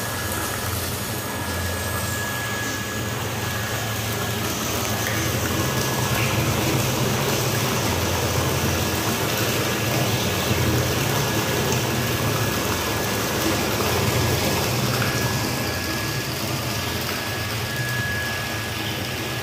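Rainwater pouring from an inlet pipe into an underground concrete sump tank: a steady rush of falling water with a low rumble.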